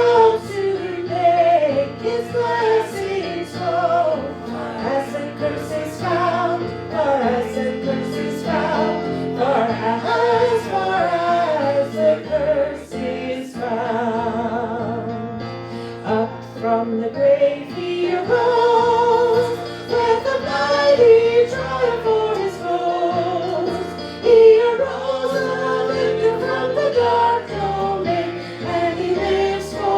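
Church worship music: a hymn sung by voices with a wavering vibrato, led by a woman, over steady instrumental accompaniment.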